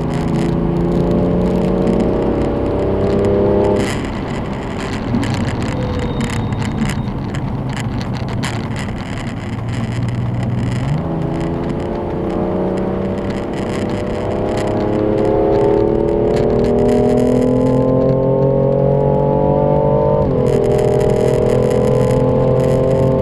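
BMW M4's twin-turbo straight-six running hard under acceleration, its pitch climbing steadily through the gears. The pitch drops suddenly about four seconds in, climbs again for a long pull, then drops sharply at an upshift near the end. Steady wind and road noise runs under it.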